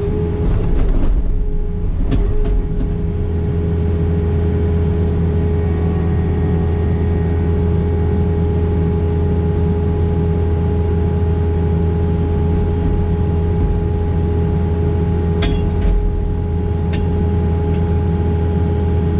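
John Deere 318G skid steer running its hydraulic brush cutter: a steady, loud engine hum with a constant whine from the spinning cutter. A few sharp cracks cut through near the start and again about three quarters of the way in.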